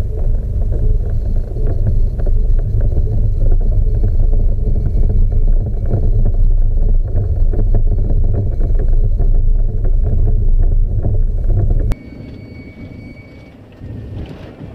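Mercedes ambulance van heard from inside the cab: a loud, rattly low rumble of engine and road noise. It cuts off suddenly near the end, giving way to a quieter cabin rumble with a faint steady high tone.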